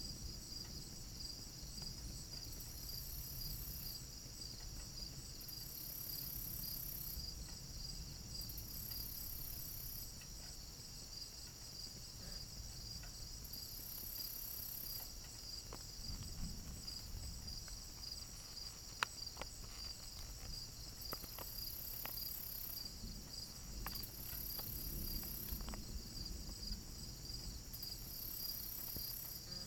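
Crickets and other night insects chirping in a fast, steady trill, with a higher insect buzz switching on and off every second or two. A low rumble runs underneath, and a few sharp ticks fall in the second half, the loudest about two-thirds of the way in.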